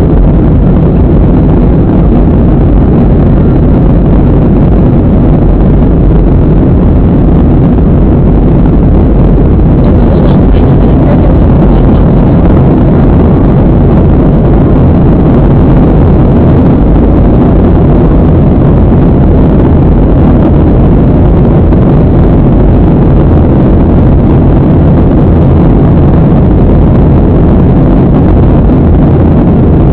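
Loud, steady cabin noise inside a Southwest Airlines Boeing 737 in flight: engine and airflow noise, deep and even, with a faint low hum underneath.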